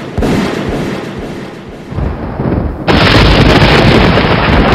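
Loud, rumbling, explosion-like sound effect with deep thuds, jumping louder about three seconds in.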